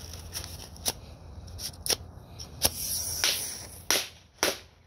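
A pink strike-on-box match firecracker being scratched against the striker on its box: about six short, sharp scratching strikes until the tip catches and burns.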